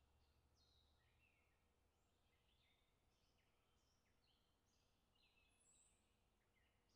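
Near silence, with only very faint, short, high chirps scattered through it.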